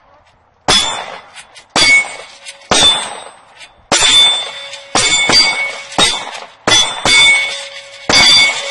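About ten handgun shots, roughly one a second, each bullet hitting an AR500 steel gong target with a sharp clang followed by a ringing tone that fades before the next hit.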